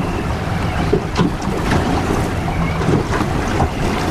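Strong wind buffeting the microphone while choppy waves splash and slap irregularly against the hull of an anchored boat.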